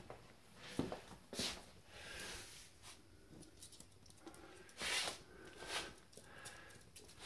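Small puppies moving about on a laminate floor: light clicking and pattering of claws, with a few short, louder scuffling noises.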